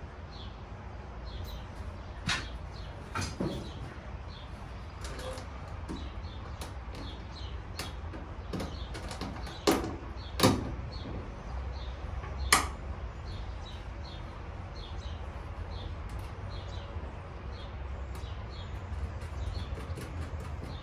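Scattered sharp knocks and clicks of hand work on metal, about six of them, the loudest a little before halfway, as a wiring hanger and its hardware are fitted to the truck's firewall. Faint short bird chirps repeat throughout.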